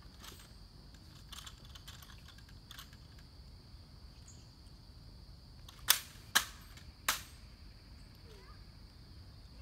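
Three sharp snaps in just over a second, a little past the middle, with a few faint clicks before them, from a ceremonial M14 rifle being handled during a Tomb Guard rifle inspection.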